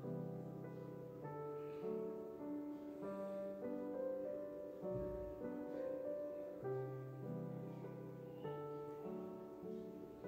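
Quiet background piano music, held notes and chords changing every second or so.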